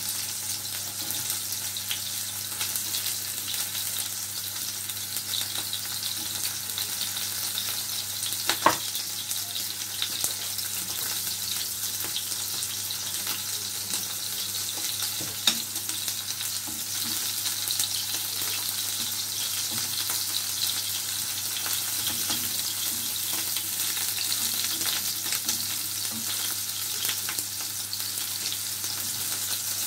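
Tuna steaks sizzling steadily in hot oil and butter in a frying pan, with halved radishes frying alongside them. Two sharp knocks come about nine and fifteen seconds in.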